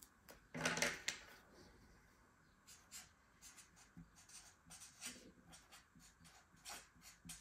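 Pencil and marker strokes scratching on a sheet of paper: a series of short drawing strokes, the loudest and longest about a second in.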